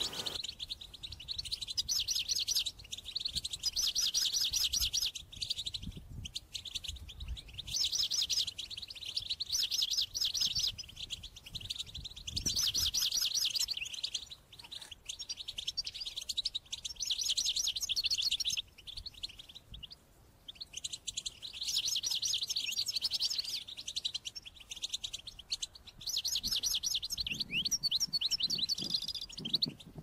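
European goldfinch singing its fast twittering, trilled song in phrases of one to three seconds, separated by short pauses.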